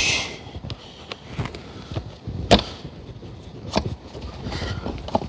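Irregular knocks and clicks of parts being handled and fitted on a personal watercraft, the loudest about two and a half seconds in, with a short hiss at the very start.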